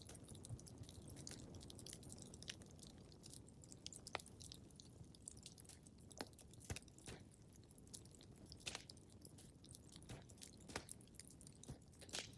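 Faint crackling of a wood fire in a fireplace: irregular small pops and snaps, a few sharper ones, over a low steady rumble.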